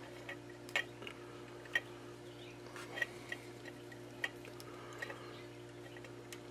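Scattered light clicks and taps, about six in all and a second or so apart, from hands handling thin pixel wires and heat-shrink tubing at a workbench, over a steady low electrical hum.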